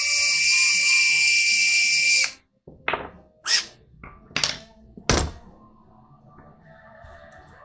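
A small electric power tool's motor runs with a steady high whine and cuts off sharply about two seconds in. A few sharp knocks and clacks follow over the next couple of seconds, like hard parts being set down on a bench.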